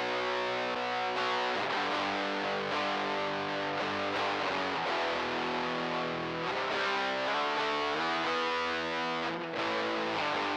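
Electric guitar played through a Tech 21 SansAmp GT2 amp-simulator pedal set for distortion. Distorted chords ring on, changing every second or two.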